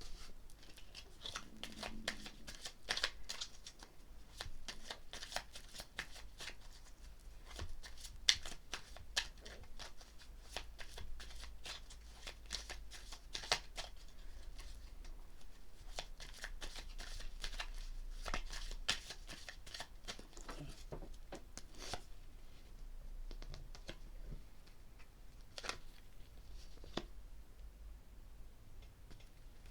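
A deck of tarot cards being shuffled by hand: a dense run of quick card flicks and snaps, thinning to scattered taps over the last several seconds.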